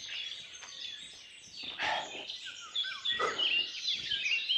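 Wild birds singing and chirping, several voices overlapping in quick high chirps and short whistles. Two brief, dull noises about two and three seconds in, like rustling or handling.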